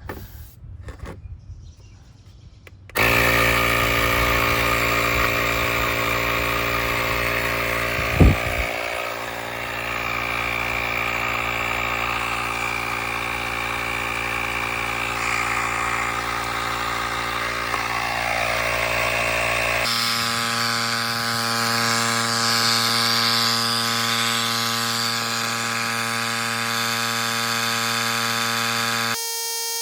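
GREPRO 160 psi cordless tire inflator running steadily as it pumps up a car tire. The compressor starts about three seconds in, with a brief knock a few seconds later. Its sound changes abruptly about twenty seconds in, and it stops just before the end.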